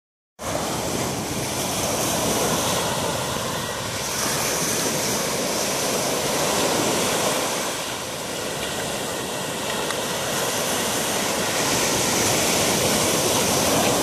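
Surf breaking and washing up a sandy beach, a steady rushing noise that swells and eases every few seconds.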